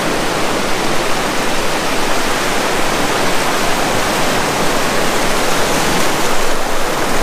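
Surf breaking and washing over a rocky shore: a loud, steady rushing noise.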